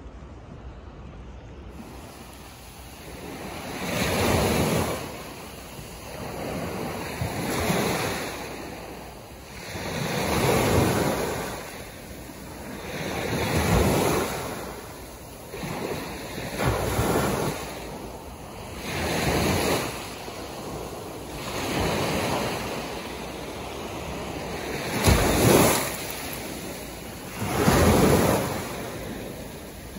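Small waves breaking and washing onto a shell-strewn sand beach, one surge rising and falling about every three seconds, starting about two seconds in.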